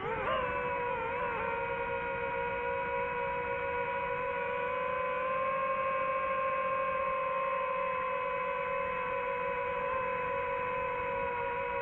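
DJI FPV drone's motors and propellers whining in flight. The pitch wavers briefly at the start, then holds nearly steady, rising slightly around the middle.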